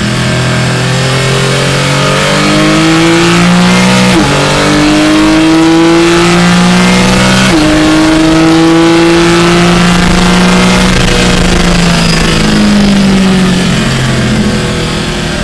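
Porsche 718 Cayman GT4 Clubsport's flat-six engine, heard from inside the cockpit, pulling hard under full throttle with its pitch climbing. It upshifts twice, about four and seven and a half seconds in, and eases off near the end as the car slows.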